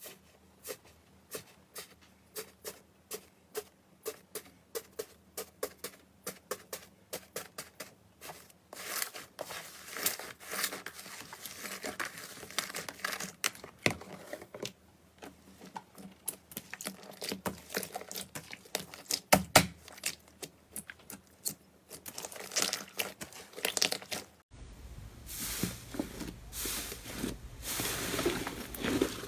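Slime being squeezed and pressed by hand: sticky clicks and pops, about two a second at first, then a denser, irregular crackle. Near the end the background changes abruptly and the crackling continues over a faint hiss.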